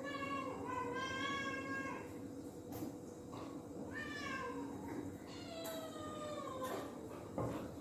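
Cat meowing three times, long drawn-out meows, the second and third falling in pitch.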